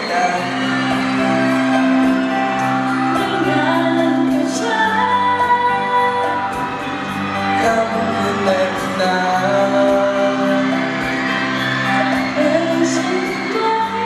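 Live pop duet: a woman and a man singing into microphones over band accompaniment, amplified through a large concert hall's sound system.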